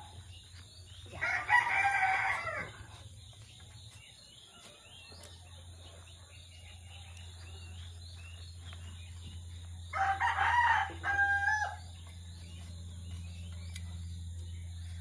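A rooster crows twice, once about a second in and again about ten seconds in, each crow lasting over a second, with the second ending on a held note.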